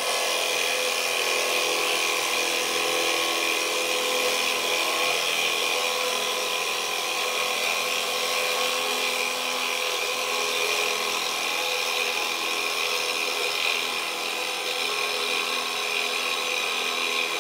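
Benchtop drill press boring into a wooden board with a Forstner bit: the motor and spindle run with a steady whine while the bit cuts, scraping out shavings, easing off a little near the end. The spindle runs straight without play or vibration, so the bit cuts without rubbing excessively against the sides.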